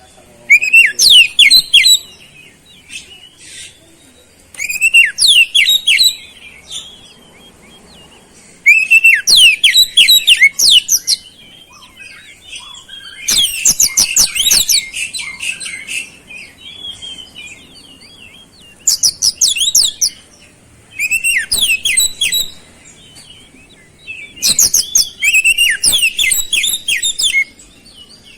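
Oriental magpie-robin singing in about seven rapid, high-pitched bursts of one to three seconds each, with short pauses between them; its song is filled with mimicked flowerpecker notes.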